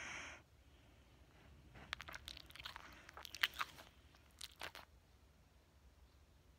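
A Wheaten Terrier breathing slowly in sleep: a noisy breath fades out at the start, then faint small clicks and crackles come in a cluster for about three seconds before a quiet pause.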